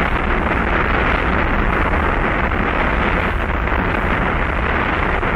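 Steady rumbling roar of the Saturn V's five first-stage F-1 rocket engines climbing away about half a minute after liftoff, heard in an archival launch recording with a muffled, dull top end.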